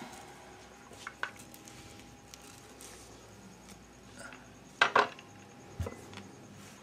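Quiet handling sounds at a table: scattered small clicks and knocks, with a pair of sharper knocks near five seconds in and another a second later.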